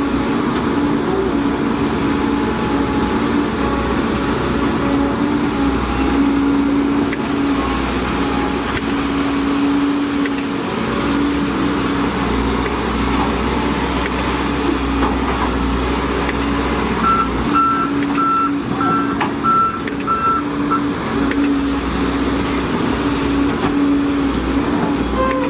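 Volvo EC210DL excavator's diesel engine running steadily. A little past the middle, a warning alarm beeps about twice a second for a few seconds.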